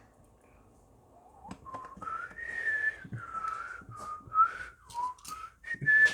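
A person whistling a slow, wandering tune, starting a little over a second in, with a few small clicks and taps mixed in.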